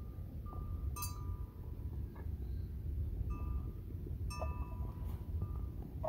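Small bell clinking a few times in short ringing notes, over a steady low rumble.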